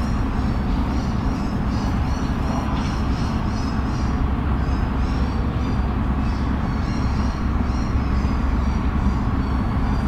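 City park ambience: a steady low rumble of city traffic, the loudest part, with many small birds chirping in short high notes throughout.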